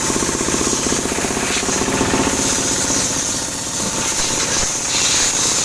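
Steady, rapid mechanical rattling of a running engine-driven machine, with a steady hiss of compressed air over it.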